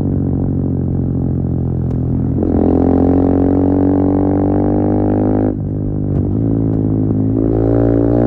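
KTM Duke 390 single-cylinder engine running through a decatted Akrapovic slip-on exhaust while riding, a steady droning note. The note steps up about two and a half seconds in, dips briefly in loudness at about five and a half seconds, then builds again near the end.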